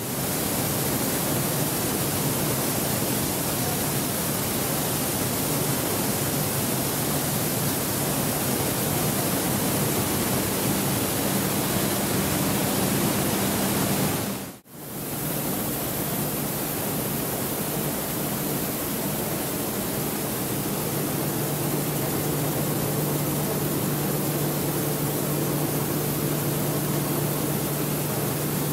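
Coffee bean cleaning machinery running: a steady, even hiss with a low hum underneath. About fourteen seconds in it drops out for a moment and comes straight back, the hum a little lower after.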